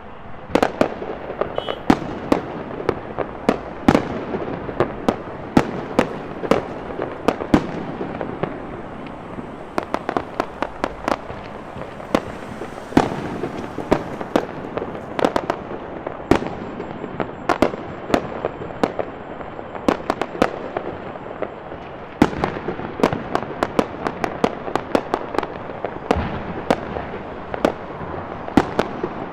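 Fireworks and firecrackers going off in a rapid, irregular stream of sharp bangs and pops, several a second, over a steady noisy background.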